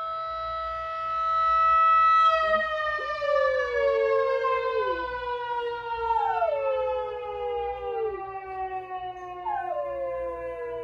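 A small terrier howling along with a siren. The siren holds one steady tone and then slowly drops in pitch, while the dog gives three long howls about three seconds apart, each sliding down in pitch.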